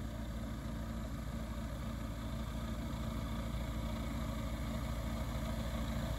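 Edra Super Petrel 100 amphibian's Rotax 912 engine and pusher propeller running at low taxi power, a steady low hum that grows slightly louder as the aircraft taxis closer.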